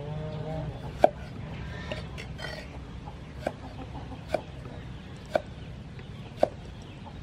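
Steel cleaver chopping an onion on a wooden chopping board: five sharp knocks at uneven intervals of about a second.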